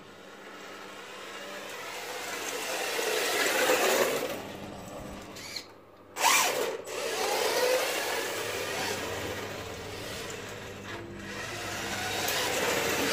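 The brushed electric motor and drivetrain of an FTX Banzai 4WD RC drift car whining as it is driven, rising and falling in pitch with each burst of throttle. Its hard plastic tyres scrub on block paving. There is a short lull about six seconds in.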